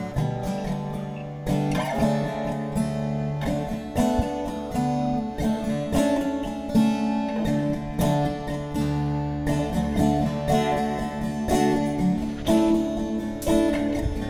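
Acoustic guitar music, plucked and strummed.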